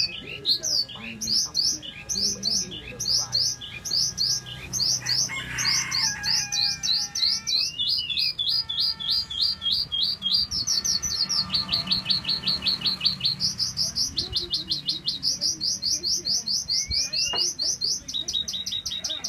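Caged sơn ca (lark) singing a long, continuous song of quick, high chirped notes, several a second, switching its phrase pattern every few seconds, with a brief rising whistle near the end.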